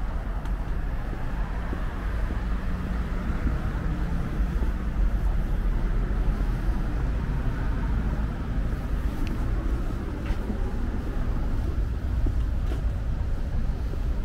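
Steady city street traffic noise, a constant rumble of car and truck engines and tyres on the road, with a few faint clicks in the second half.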